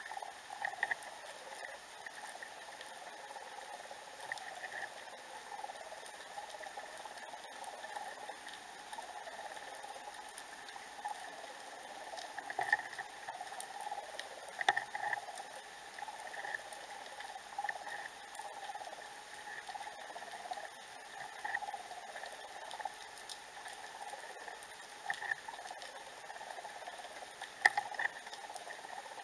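Underwater sound picked up by a submerged camera: a steady muffled hiss with scattered crackling clicks, and a few sharper taps, twice near the middle and once near the end.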